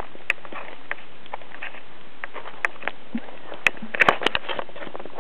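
Steady hiss with scattered sharp clicks and knocks, and a quick cluster of them about four seconds in: handling noise from a handheld camera as it is moved.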